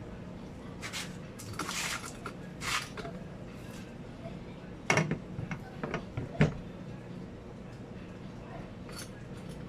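An alloy motorcycle top box being handled against its mounting plate: a few scraping slides, then two sharp clunks about a second and a half apart with small clicks between them, and a last click near the end. All of it sits over a steady low hum.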